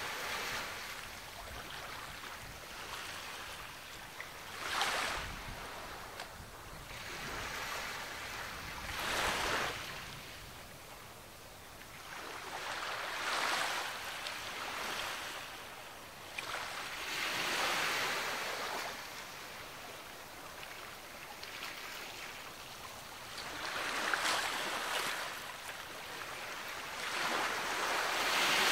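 Surf washing up a beach: waves break and rush in one after another, each surge swelling and falling away every four to six seconds over a steady hiss of water.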